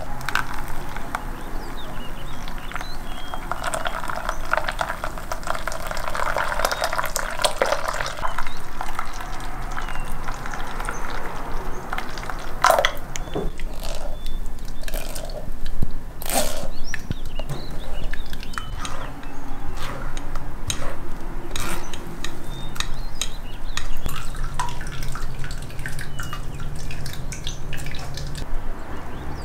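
Thick blended fruit juice pouring from a blender jug into a metal mesh sieve, then dripping and splashing through it into a glass bowl, with scattered small knocks and scrapes of a spatula pressing the pulp; two louder knocks come about a third and halfway through.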